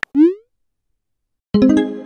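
Texting-app sound effects: a short rising boing-like glide, then after a pause a ringing chord that fades away, with a few keyboard-tap clicks at its start.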